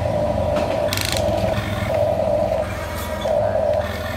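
Huina remote-control toy excavator's electric motors whining in repeated short spurts as the boom and arm are worked, with a brief rattling click about a second in.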